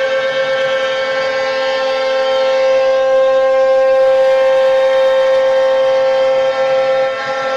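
CNC router spindle running with a steady, high-pitched whine while milling solid maple.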